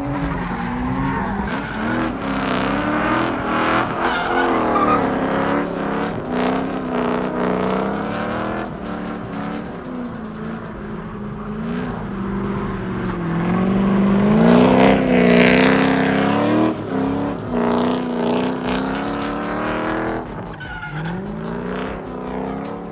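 Performance car engines revving hard under acceleration, the pitch climbing and dropping again and again with gear changes, loudest about two-thirds of the way through.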